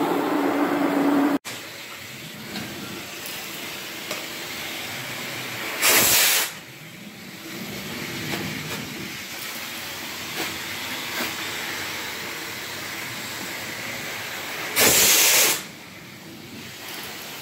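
A motor humming with a steady tone cuts off about a second and a half in. Then a carpet-cleaning extraction wand draws water and air out of the carpet with a steady hiss, broken by two short, much louder bursts of hiss about six and fifteen seconds in.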